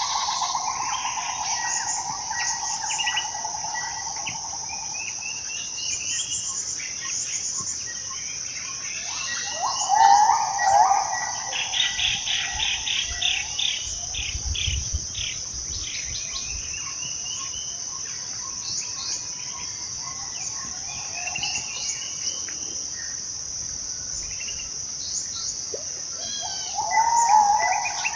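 Borneo rainforest ambience: a steady, high-pitched insect drone with many bird calls over it. Louder, lower calls come about ten seconds in and again near the end, and a rapid run of repeated notes follows the first of them for a few seconds.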